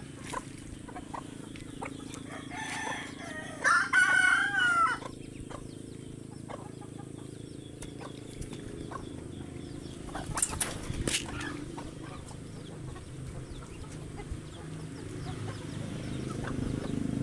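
A rooster crows once, loudly, about three to five seconds in, among chickens clucking. A few short, sharp sounds come around ten seconds in.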